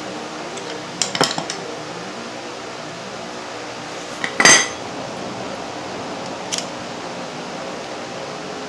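Metal parts and tools clinking against each other: a quick cluster of clinks about a second in, one louder ringing clink about halfway, and a small one after it, over a steady background hiss.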